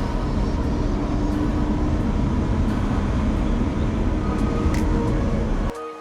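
Lamborghini Huracán's V10 engine running steadily as the car drives, cutting off abruptly near the end.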